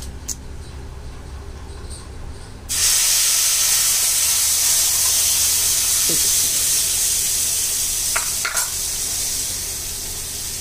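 Wet ground onion, tomato and garlic masala paste dropped into hot mustard oil in a frying pan: a loud sizzle starts suddenly a little under three seconds in and carries on, slowly easing, as the paste fries.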